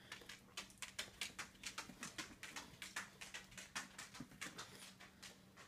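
A toddler chewing tomatoes with her mouth open, making faint, quick smacking clicks, several a second and irregular.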